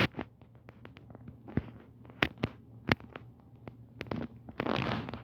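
Scattered sharp clicks and taps at irregular intervals, with a short rush of noise lasting about half a second near the end.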